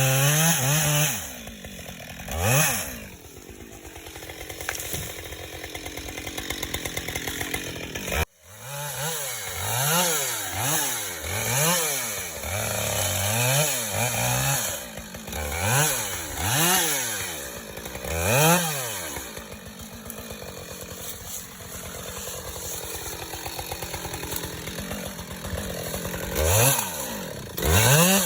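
Two-stroke chainsaw revving up and down over and over, the throttle opened and released every second or two, with a steadier stretch early on and a sudden brief dropout about eight seconds in.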